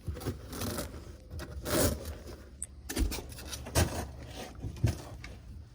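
Hand scraping and rubbing at the fiberglass and wood of a bass boat's floor cavity, in irregular strokes with a few sharper knocks.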